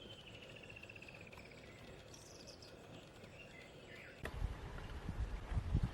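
Faint bird calls over quiet bush ambience, including one pulsed trill that slides down in pitch. About four seconds in, the sound changes abruptly to louder, irregular low thumps and rumbling.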